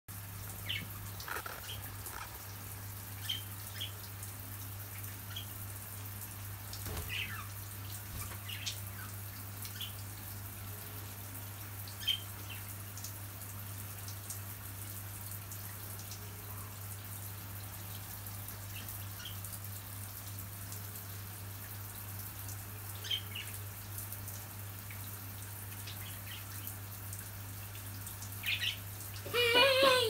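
Budgerigars giving short, scattered high chirps over a steady hiss of running shower water and a low hum, with a louder, longer call near the end.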